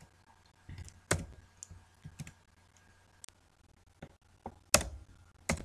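Computer keyboard keystrokes while code is being edited: about nine separate clicks at irregular spacing, the loudest about three-quarters of the way through.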